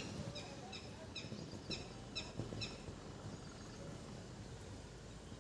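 A bird chirping: a quick run of about six short, falling chirps, about two a second, that stops after about three seconds.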